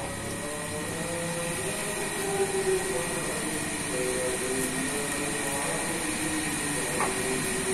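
Squid, shrimp and petai simmering in sauce in a wok: a steady sizzling, bubbling hiss.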